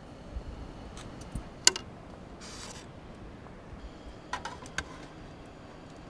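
Sharp clicks from the knob and igniter of a Jetboil camp stove, then a brief hiss of gas as the burner lights. About four seconds in come a few metallic clinks as a pan is set on the stove's pot supports, over a faint steady burner hiss.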